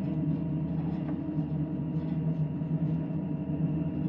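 Steady low drone of the car ferry Sunflower Sapporo's engines and machinery heard aboard at sea, with a few faint light clicks over it.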